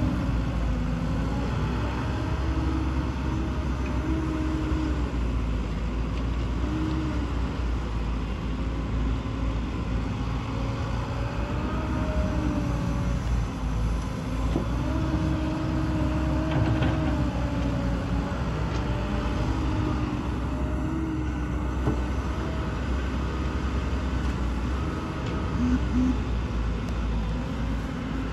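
Hyundai crawler excavator's diesel engine running under hydraulic load as it digs and dumps mud into a tipper truck, over a steady low rumble. Its pitch steps up and down several times as the machine works.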